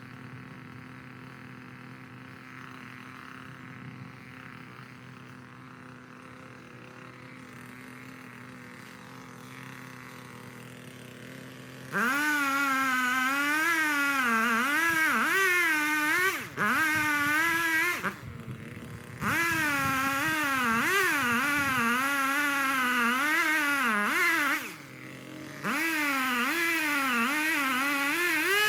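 Echo CS-3510 two-stroke chainsaw running at a low steady idle, then about twelve seconds in opened up to full throttle, its pitch swinging up and down as it cuts and bogs in the wood. The throttle is let off briefly a few times, the engine falling back toward idle before revving again.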